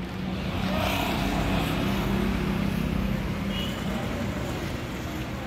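Street noise with a vehicle engine running steadily, a low hum under a constant haze.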